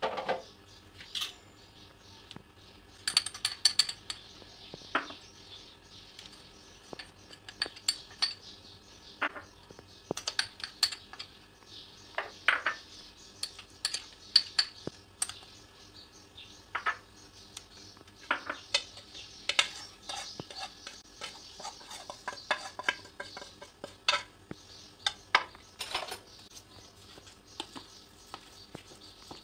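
A plastic spoon and small cups tapping and scraping against a plastic box as spices and ground ingredients are tipped into it: scattered, irregular clicks and knocks.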